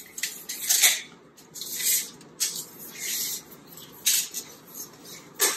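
Steel blade of a retractable tape measure being pulled out and handled against a door frame: irregular bursts of hissy scraping and rattling.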